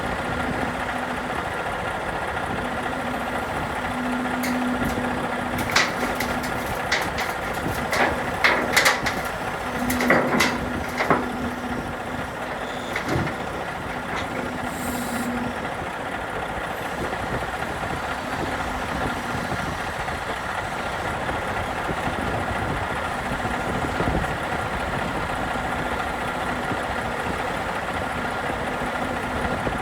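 Heavy diesel dump truck's engine running steadily, heard from the truck, with a cluster of knocks and rattles about a quarter of the way in.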